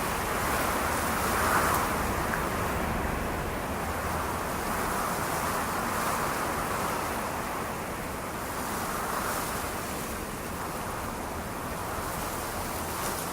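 Ocean surf: a steady rush of waves that swells gently every few seconds.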